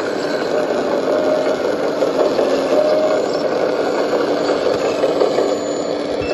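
Caterpillar D11 bulldozer running steadily, its engine and machinery making a dense, even mechanical noise.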